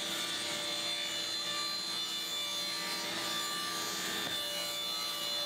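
Table saw ripping a strip of 3/4-inch plywood, the blade cutting steadily through the board with the motor running.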